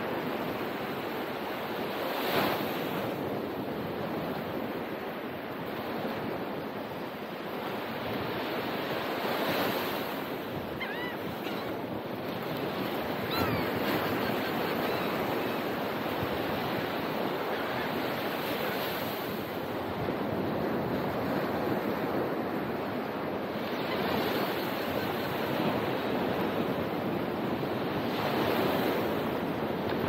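Ocean surf breaking and washing up the beach, swelling every several seconds, with wind buffeting the microphone. A couple of short, high bird calls come near the middle.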